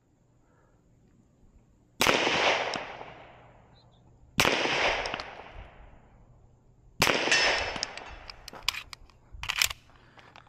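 Three 9mm pistol shots from a 1911, spaced about two and a half seconds apart, each trailing a long echo off the range berms. A few shorter, sharp knocks follow near the end.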